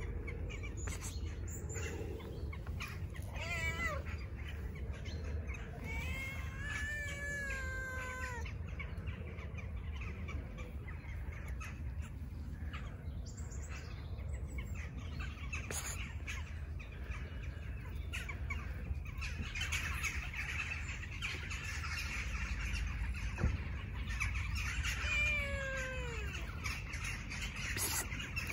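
Tabby cat meowing: several falling, drawn-out meows in the first eight seconds or so, and another falling meow near the end, over a steady low rumble.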